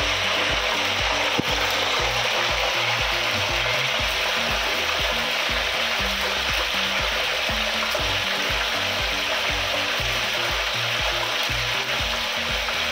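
French fries frying in hot oil in an electric deep fryer: a steady sizzling hiss. Background music with a steady beat plays underneath.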